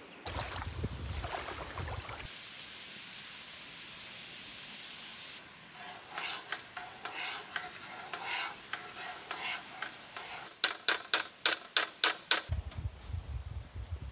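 A spoon stirring sauce in a steel saucepan on a portable gas camping stove, scraping round the pot in repeated strokes, then a quick run of sharp clinks against the metal. A steady hiss comes before the stirring.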